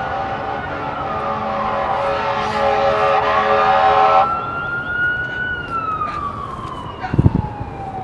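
An emergency-vehicle siren wailing, its pitch slowly rising and falling. A steady many-toned drone sounds under it until about four seconds in, and a short low thump comes a little after seven seconds.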